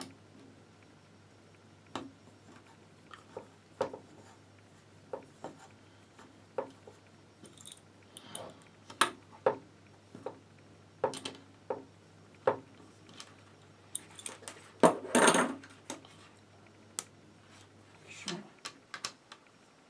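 Airsoft rifle parts clicking and knocking as they are handled and fitted together, in scattered single clicks, with a longer scraping rustle about three-quarters of the way through. A faint steady low hum lies underneath and stops near the end.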